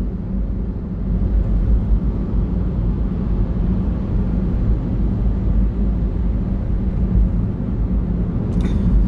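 Steady low rumble of road and engine noise inside a moving car's cabin. A brief noise is heard near the end.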